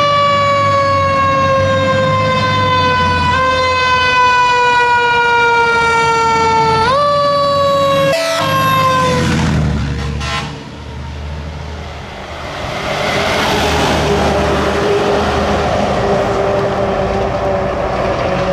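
A fire engine's siren holds one tone that slides slowly down in pitch, jumps back up twice, and then falls away quickly about eight seconds in. After a short quieter moment, a heavy truck's engine and road noise rise loudly as the engines pass.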